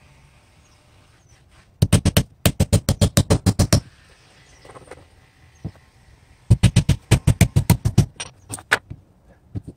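A hammer tapping rapidly on wood siding, about seven quick blows a second. The taps come in two runs of a second or two each, then a few single taps near the end.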